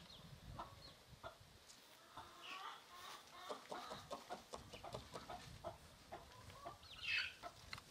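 A flock of free-range indigenous chickens clucking faintly and on and off, with a louder, higher call about seven seconds in.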